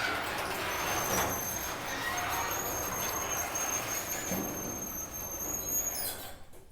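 Genie garage door opener running as the door closes: a steady mechanical rumble with a thin high-pitched squeal over it, stopping about six seconds in as the door finishes travelling.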